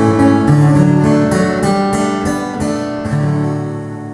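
Closing bars of a song: acoustic guitar strumming, then about three seconds in a final chord left to ring and fade away.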